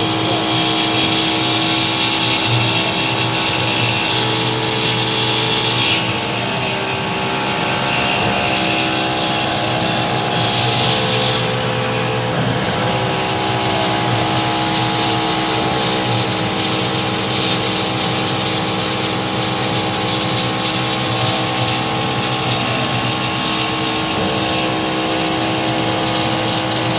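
Homemade CNC milling machine cutting a clamped plate under flood coolant: the spindle and end mill run with a steady whine of several tones over a hiss of cutting and coolant spray.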